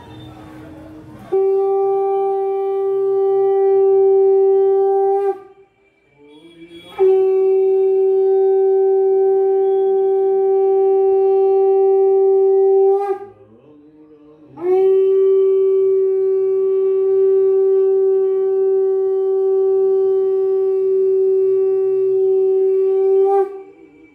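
Conch shell (shankha) blown in three long, steady blasts on one held note, each several seconds long and the last the longest. It is the ritual conch call sounded during the aarti of a Hindu puja.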